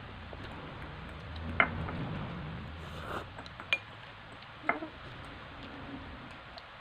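Utensils clinking against bowls while spicy ramen noodles are eaten: three sharp clinks, about 1.5, 3.5 and 4.5 seconds in.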